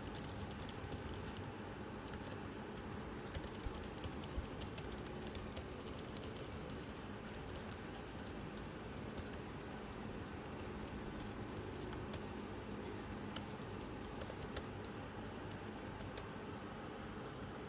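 Laptop keyboard keys clicking irregularly as they are pressed, over a steady low hiss.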